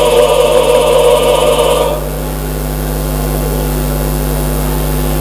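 A male choir singing a held chord that cuts off suddenly about two seconds in, leaving a steady electrical hum.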